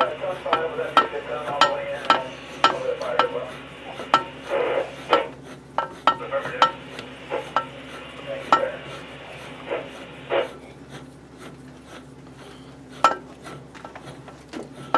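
Metal clicking and scraping from a 5C lathe collet closer and spindle turned by hand to thread a collet in. Sharp clicks come about every half second at first and fewer later, with a rasping metal rub under them that stops about ten seconds in.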